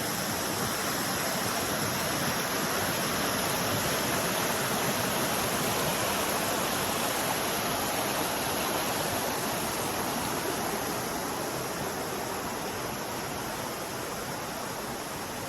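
Steady rush of flowing water, as of a stream or waterfall in full flow.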